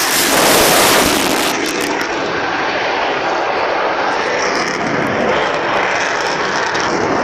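Loud, steady jet noise from a Eurofighter Typhoon's two EJ200 turbofan engines during a display flight. It is loudest in about the first one and a half seconds, then holds steady.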